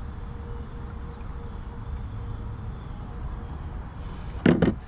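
A steady, high-pitched insect trill over a low wind rumble, with one loud knock or clatter about four and a half seconds in.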